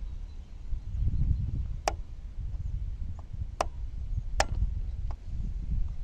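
A 5 mm Allen key working a hex screw loose on a Yamaha R15 V3's rear brake caliper: a few light metallic clicks of the key and screw, three of them sharper, over a low rumbling background noise.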